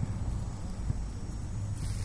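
Low steady rumble with faint ticks. Near the end a short rustling scrape starts as fingers rub and turn a dirt-covered penny close to the microphone.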